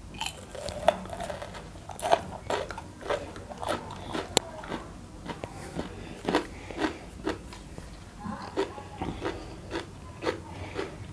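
Close-miked chewing and crunching of a chicken curry leg piece, with irregular sharp crunches several times a second.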